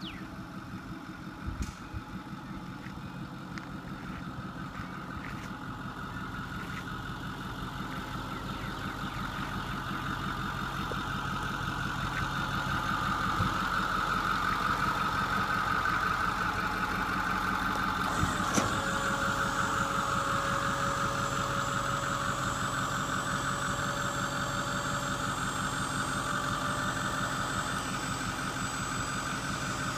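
2008 Ford F-350's 6.4L V8 diesel running, driving the hydraulics of a Kargo King roll-off hoist as the steel flat bed is raised. A steady whine builds over the first dozen seconds. A little past halfway there is a single clunk, after which a higher tone joins the running sound.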